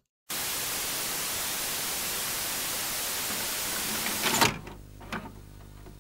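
Steady TV static hiss that cuts off with a loud clunk as a VHS cassette is drawn into a VCR, followed by a second click and a low steady hum from the deck's mechanism.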